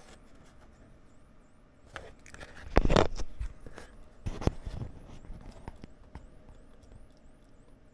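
Close handling noises on a desk: a rustle about two seconds in, a loud knock with rubbing about three seconds in, and a shorter knock a little after four seconds, as the small wooden part is put down on the cutting mat and the camera is moved.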